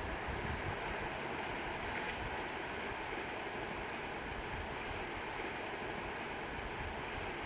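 Small sea waves washing over and around shoreline rocks, a steady hiss of surf.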